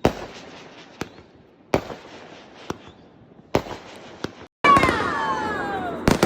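Fireworks going off: a string of sharp bangs about once a second, then a loud burst about two-thirds of the way in with several whistles falling in pitch, and another bang near the end.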